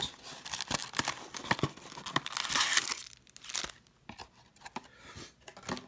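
Packaging of a box of baseball card packs being torn open and crinkled by hand, a dense crackling tear heaviest about halfway through, then lighter rustles and clicks.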